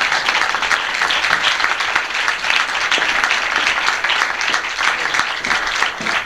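Audience applauding, many hands clapping in a dense, even patter.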